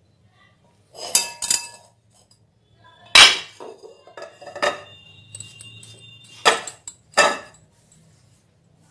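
Crockery bowls and plates knocked and clinked as they are handled and set down on a stone countertop: a short clatter about a second in, then four sharp knocks, one of them leaving a dish ringing for a couple of seconds.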